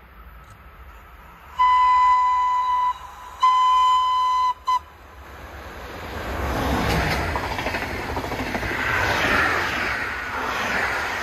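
DB class 110 electric locomotive sounding its horn in two long blasts and a short one, then the locomotive and its passenger coaches passing with a swelling rumble of wheels on rail.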